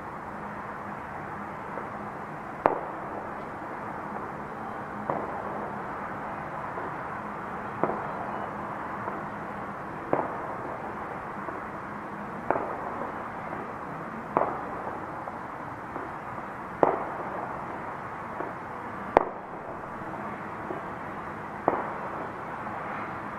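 Sharp celebratory bangs from New Year's festivities, about nine of them, roughly one every two and a half seconds, each with a short echo, over a steady low background hum.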